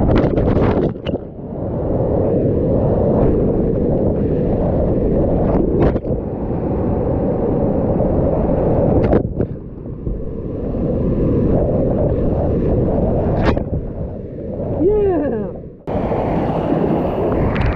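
Whitewater rapids rushing loudly around a kayak, with splashes and wind-like buffeting on the microphone. The rush dulls briefly three times as the camera plunges through foam.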